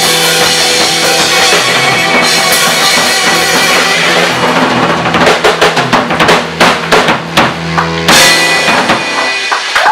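Live rock band with guitars, keyboard and drum kit playing held chords, the drummer breaking into rapid fills and cymbal crashes over them about halfway through, with a final crash left ringing near the end as the song closes.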